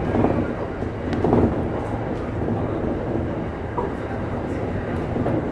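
Electric commuter train running along the line, with a steady rumble of wheels on rail heard from the front of the train. Two louder swells come in the first second and a half.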